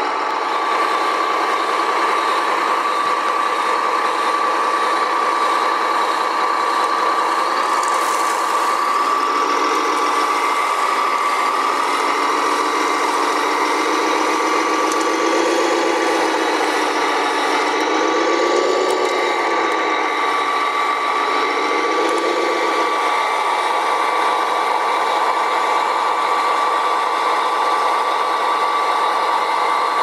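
Electric motors and gearboxes of radio-controlled tracked dump carriers whining steadily. From about a quarter of the way in until about three quarters through, a lower motor note rises and falls as the dump bed is tipped up.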